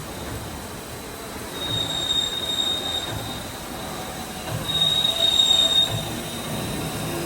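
TCP H-1200L heavy-duty CNC lathe running, with a high-pitched squeal that comes in twice, for a second or so each time, over a low machine rumble.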